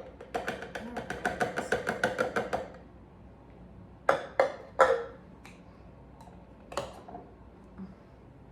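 A utensil clinking rapidly against a glass as juice is stirred, about six or seven clinks a second for a couple of seconds. Three sharp taps follow about four to five seconds in, and one more a couple of seconds later.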